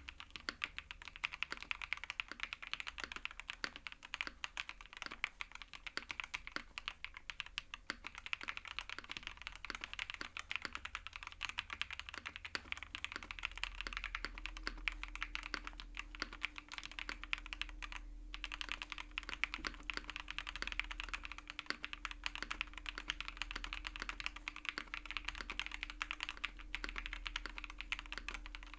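Continuous fast typing on a custom mechanical keyboard with Duhuk Lumia Matcha V4 Pro linear switches: a dense stream of keystroke clacks, with one brief pause about two-thirds of the way through.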